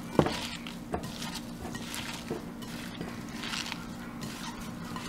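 Gloved hands tossing and squeezing sliced vegetables in a glass mixing bowl: irregular wet rustling and crunching of the pieces, with a sharp knock against the bowl just after the start and a smaller one a second in, over a faint steady hum.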